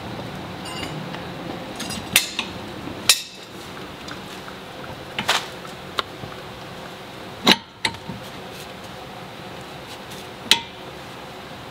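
Several scattered sharp metallic clinks and knocks as steel suspension parts are handled: the sway bar end link being worked toward its mounting hole on the strut bracket.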